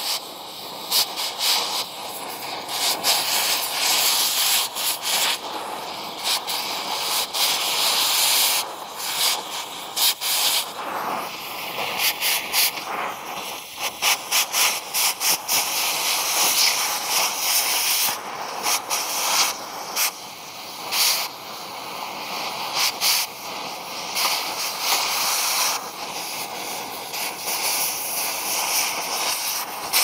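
Oxy-fuel cutting torch hissing steadily as it cuts through the steel around a semi truck fifth wheel's mounting pin, with frequent sharp pops and crackles from spattering molten slag.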